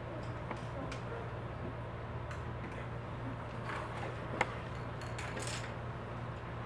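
Classroom room tone: a steady low hum with scattered small clicks and rustles of children working with pencils and paper at their desks, and one sharper click about four seconds in.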